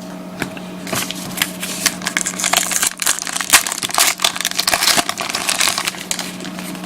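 A trading card pack's wrapper being torn open and crinkled by hand, an irregular run of crackles, with the cards handled as they come out.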